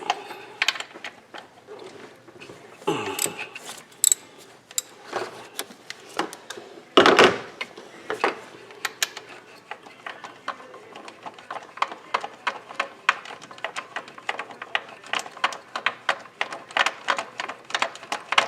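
Hand ratchet clicking as the bolt of the top belt tensioner pulley is worked loose, with scattered metal knocks and a loud clunk about seven seconds in; later the clicks run on in a steady series.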